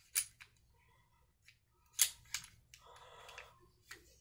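Metal parts of a small pistol clicking and scraping as the slide and barrel are worked onto the frame during reassembly. A few sharp clicks, the loudest just after the start and about two seconds in, and a brief rasp about three seconds in.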